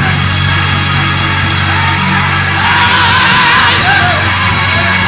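Church service music with long, sustained low chords. From about halfway through, voices in the congregation shout and sing out over it.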